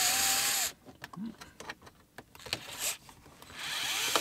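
DeWalt cordless screwdriver motor whining as it drives a screw, running briefly, then stopping for a few small clicks of handling, then starting again about three and a half seconds in. The screw fails to catch in its hole.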